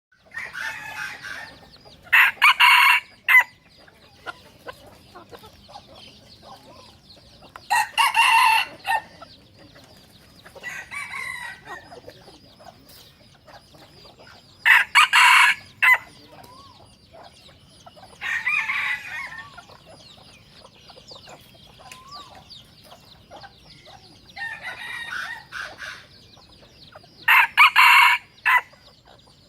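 Rooster crowing again and again: four loud crows of about a second each, with softer calls in between. Chickens cluck steadily underneath.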